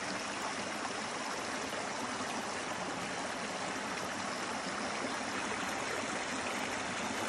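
Shallow rocky hill stream running over stones and small cascades, a steady rushing trickle.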